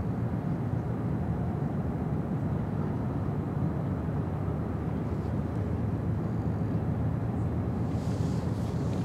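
Steady low rumble of the container ship's and the tugs' diesel engines across the water.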